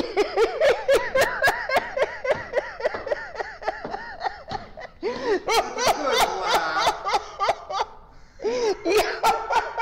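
A woman laughing heartily in quick repeated bursts. The laughter fades briefly about eight seconds in, then picks up again.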